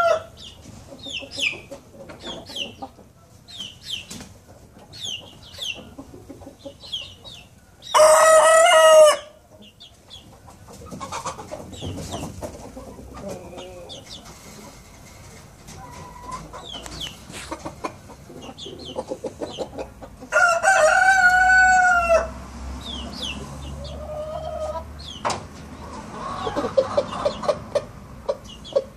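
A young collonco (Araucana) rooster crowing twice, about a second and a half each time, once about eight seconds in and again about twenty seconds in. These are a cockerel's first attempts at crowing.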